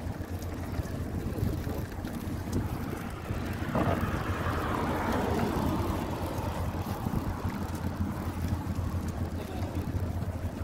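Wind rushing over the microphone of a camera riding along on a moving bicycle, with a steady low rumble. About four seconds in, a passing motor vehicle swells up and then falls away in pitch over the next few seconds.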